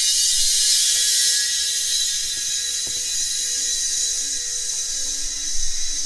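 Refrigerant rushing through a just-opened valve and hose into an evacuated recovery tank: a loud, steady, high-pitched hiss as the system's charge flows across under its own pressure. A faint steady hum lies beneath it, with a light click about three seconds in.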